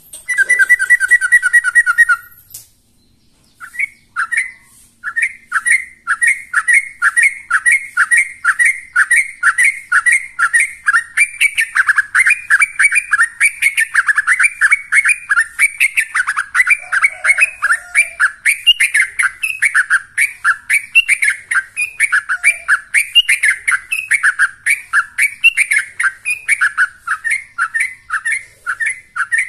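Yellow-vented bulbul singing in the rapid, continuous 'ropel' style: a long run of short, quick chirping notes repeated several times a second. It opens with about two seconds of a steadier whistled note, then a brief pause before the fast run starts.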